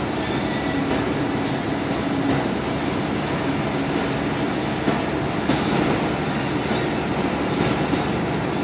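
Steady road and engine noise inside the cab of a moving semi-truck, with tyre rumble and cab rattle. A few light clicks come about halfway through.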